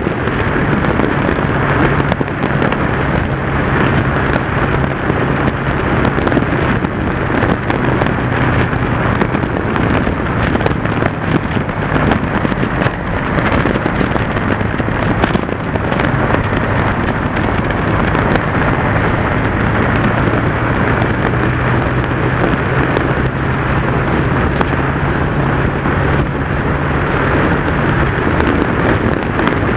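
Yamaha TDM motorcycle's parallel-twin engine running at a steady cruising speed, a low even drone under heavy wind rush buffeting the bike-mounted camera's microphone.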